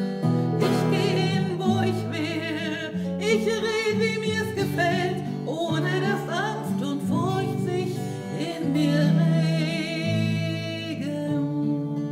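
A woman singing with vibrato, accompanying herself on a twelve-string acoustic guitar.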